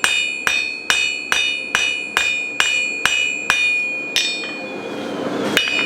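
Cross-peen hammer striking 1/4 by 1 inch flat steel stock on an anvil, flaring the end into a fishtail: steady blows a little over twice a second, the anvil ringing between them. The blows stop about four seconds in, with one more near the end.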